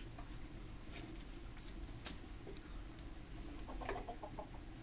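Faint sparse snaps and clicks as saag leaves are plucked by hand from their stems and dropped into a bamboo winnowing tray, with a quick run of short chirps about four seconds in.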